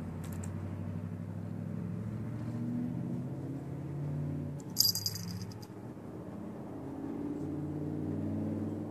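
Domestic cat purring steadily, with a short break about six seconds in. A brief metallic jingle of its collar charm about five seconds in.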